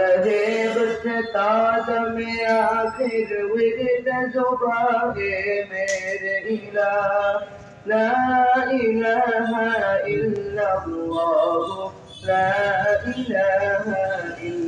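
Background music: a man singing a devotional song in long held melodic notes.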